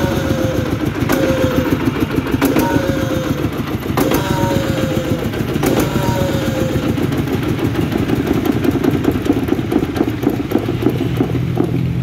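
Dongfeng S1135M single-cylinder diesel engine running steadily, with a sharp click about every second and a half during the first half, each followed by a short falling ring: the odd noise the engine is being checked for. Near the end the running sound deepens into a lower steady hum.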